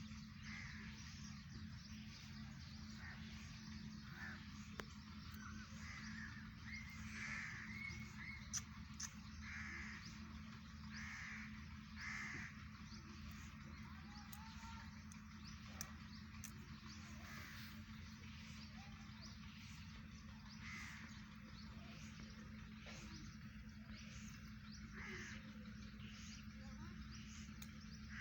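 Short animal calls repeated every second or two, over a steady low hum.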